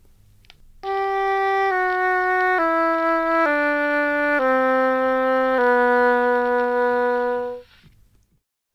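Oboe playing a slow line of six notes stepping downward, the last held longest. It is a demonstration of quiet playing, which on the oboe takes more air and breath support than loud playing.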